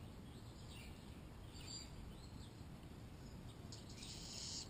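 Faint songbird chirps over a low outdoor rumble, with a brief burst of high, rapid chirping near the end.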